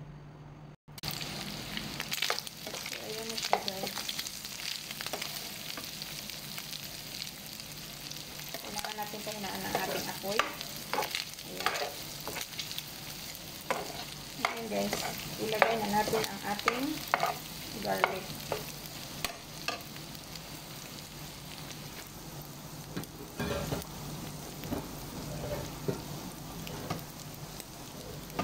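Shrimp and onion sizzling in oil in a frying pan, with a metal slotted spatula stirring and scraping the pan. The clicks and scrapes of the spatula come thickest in the middle stretch.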